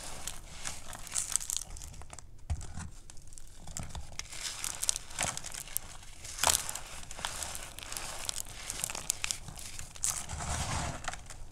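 Fingers squeezing and crumbling handfuls of gym chalk and cornstarch: a continuous, irregular run of soft powdery crunches and crisp crackles, with one sharper crunch a little past the middle.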